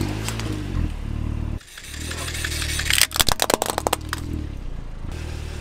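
Car engine running slowly while a tyre rolls over small plastic toys, with a quick run of sharp cracks and crunches about three seconds in as the plastic breaks under the wheel.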